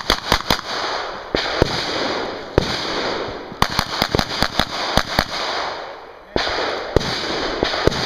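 About a dozen gunshots at a multigun match stage, fired singly and in quick pairs at uneven intervals. A steady rushing noise runs underneath.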